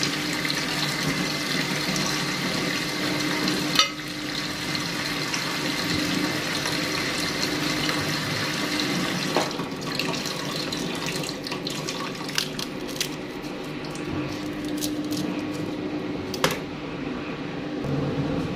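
Kitchen tap running water into a sink, a steady rush, with several sharp knocks from handling, the loudest about four seconds in.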